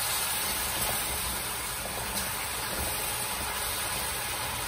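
Chicken pieces sizzling in caramelized sugar, a steady frying hiss as the meat browns for stewing, with a metal spoon stirring through the pot and a couple of faint scrapes.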